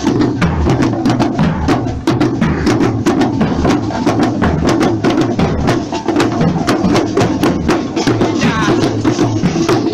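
Marching band drums beating a fast, dense rhythm up close, many sharp stick strikes with no pause.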